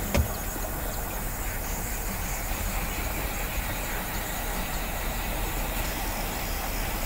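Steady outdoor background noise: an even hiss with a low rumble underneath and no distinct events.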